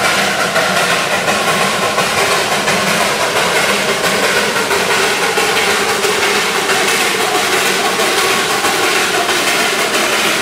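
Darjeeling Himalayan Railway narrow-gauge saddle-tank steam locomotive working towards the camera with its coaches: steady exhaust chuffing in a quick even pulse over a dense hiss of steam and running noise.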